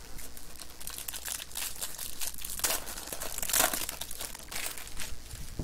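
Clear plastic wrapper of a trading-card pack crinkling and crackling in the hand as it is opened and pulled off the cards, in a dense irregular run of crackles that is loudest a little past halfway.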